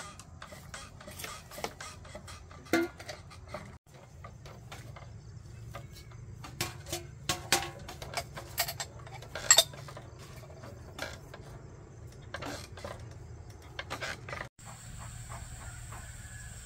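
Irregular clinks and knocks of small hard objects being handled, like dishes and utensils, the loudest a sharp clink just past halfway. Near the end they give way to a steady high hiss.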